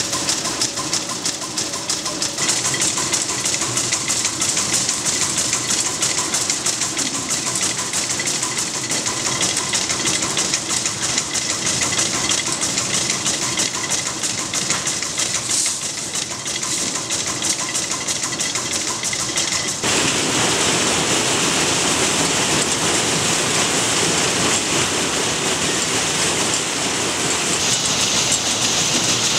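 Hundreds of small lighter valve parts rattling as they are shaken across the perforated plates of a vibrating arranging feeder, a dense, steady clatter. It grows louder and fuller about twenty seconds in.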